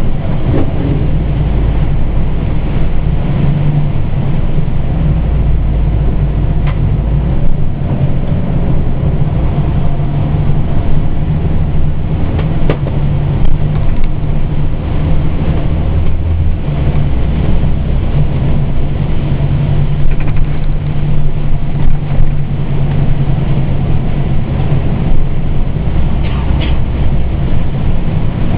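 Pierce Enforcer fire engine's diesel engine and road noise droning steadily inside the cab while under way, the low rumble shifting in strength a few times as the engine load changes, with a few faint clicks.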